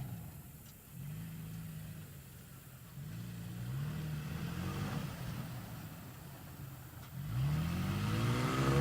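Toyota Tacoma pickup's engine revving up three times under acceleration, each time rising in pitch; the third rise, about seven seconds in, is the loudest and still climbing at the end.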